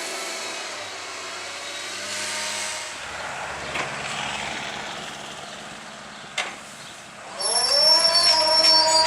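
Heavy farm machinery engine running steadily; a sharp click about six and a half seconds in, then a rising whine that levels off into a loud, steady run with high squealing tones near the end.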